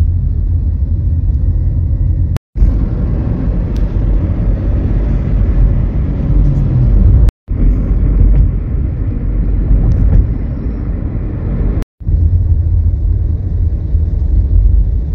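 Low, steady rumble of road and wind noise inside a moving Toyota sedan, broken by three brief silent gaps where the recording cuts between clips.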